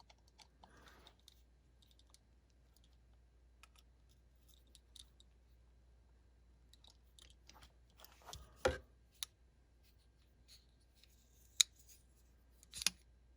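Faint, scattered small metal clicks and taps of folding-knife parts being handled and fitted during reassembly, with a few sharper ticks in the second half.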